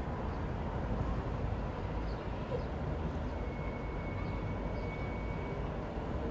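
Distant steam locomotive approaching, heard as a steady low rumble with no distinct chuffing. A faint thin high tone sounds for about two seconds in the middle.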